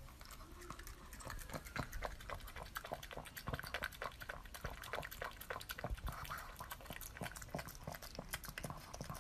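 A pug lapping a runny food from a bowl: a quick, uneven run of wet licking and slurping clicks, several a second.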